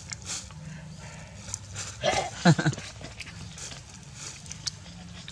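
A puppy gives one short, yelping whine about two seconds in, with faint crinkly rustling of a plastic bag around it.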